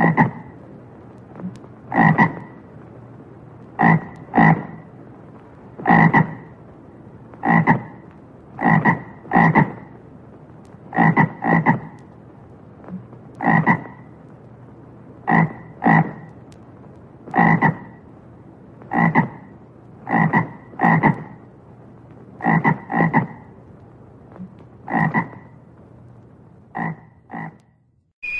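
A frog croaking: short, sharp croaks, some single and some in quick pairs, every second or two, over a steady low hiss.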